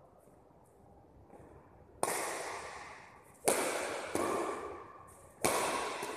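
Badminton racket strikes on a shuttlecock during a rally, four sharp cracks starting about two seconds in, the third weaker, each ringing out with a long echo in a large hall.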